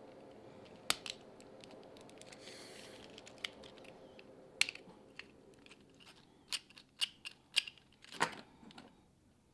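Sharp clicks and light snaps of small 3D-printed plastic parts being handled and fitted together, about a dozen irregular clicks, bunched more closely in the second half, over a faint steady hum that fades out midway.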